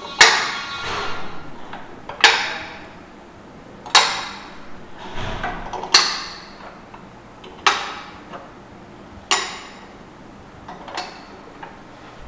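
Small cylindrical workpieces dropped one by one into the transparent vertical magazine tube of a parts-feeding station, each landing on the stack with a sharp clack and a short ring. There are about seven clacks, roughly every two seconds, and the last ones are fainter.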